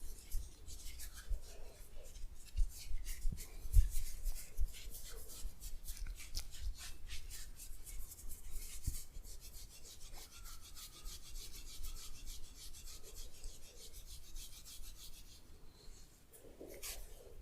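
Hands rubbing and stroking during a massage: quick, repeated swishing friction strokes, with a few dull bumps in the first half, then lighter, finer rubbing.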